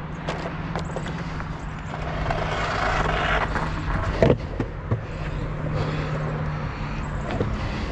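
Sector 9 longboard wheels rolling on a concrete sidewalk: a steady low rumble with sharp clacks as the wheels cross the slab joints, the loudest a little after four seconds in.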